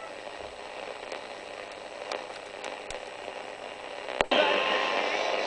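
Sony ICF-2001 synthesized receiver hissing with static and faint crackle, as between stations; about four seconds in a sharp click, and the sound jumps louder as a station's signal comes in.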